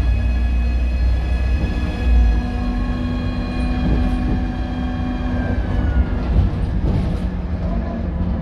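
Scania K230UB bus running on the road, heard on board: a low engine rumble, heavier in the first two seconds, under several high whining tones from its loud turbo and differential. The whine slides down in pitch about five to six seconds in.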